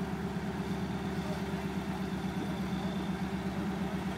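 Vehicle engine idling steadily with an even low throb.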